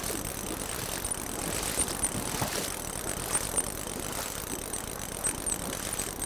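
Wading boots sloshing and splashing through shallow river water over a rocky bottom, in uneven steps, against the steady rush of the river.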